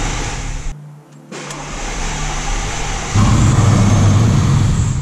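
Mercedes CLK55 AMG M113 V8 on its first start after the engine swap. A steady hum drops out about a second in, then the engine turns over and catches about three seconds in, running loud for about two seconds before falling back near the end. The owner says it kept stalling and surging at this stage because the vacuum servo and its lines were not yet fitted.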